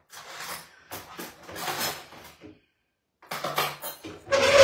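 Dishes and cutlery clinking and clattering in a kitchen, in several short bursts with gaps between, the loudest near the end.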